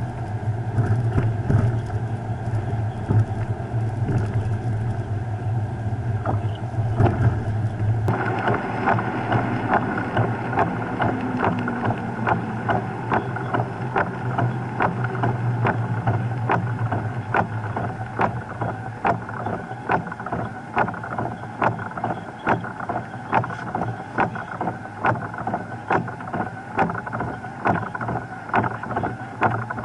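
A vehicle running, with a steady low hum for the first several seconds, then a regular ticking about twice a second.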